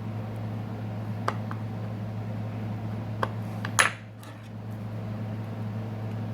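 A few light clicks of small metal tools, then a brief metallic clatter a little under four seconds in, over a steady low hum.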